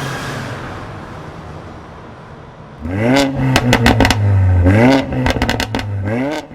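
A car sweeping past with a whoosh, then, about three seconds in, a car engine revving hard several times, its pitch climbing with each rev, with sharp crackles between.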